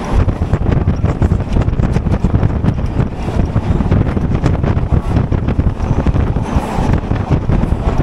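Local passenger train running at speed: a steady, loud rumble and rapid clatter of wheels on the rails, with wind buffeting the microphone.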